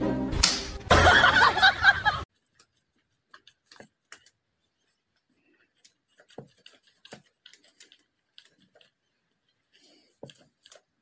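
A loud, noisy sound cuts off suddenly about two seconds in. It is followed by sparse, faint clicks and taps of a cat's paws and claws on a hard floor.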